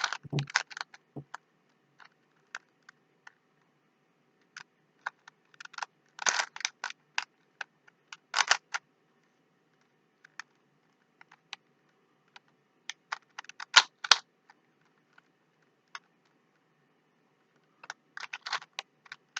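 Plastic Rubik's Cube being twisted by hand: sharp clicking as the layers turn, in short bursts of several clicks with scattered single clicks and pauses of a few seconds between.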